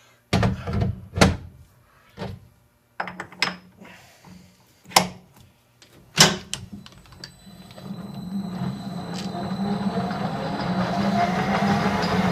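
Sharp metallic clanks and knocks as parts and tooling are handled at a metal lathe. From about seven seconds the lathe starts and runs, its hum building steadily as the chuck spins up.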